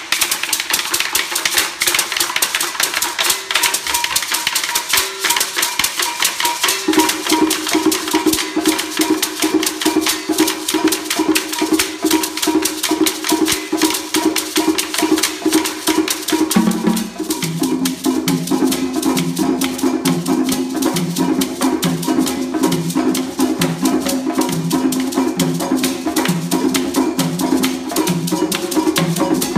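Drum ensemble of djembes and a conga playing a steady, busy rhythm together, several drums struck with sticks. A lower repeating part comes in a little past halfway.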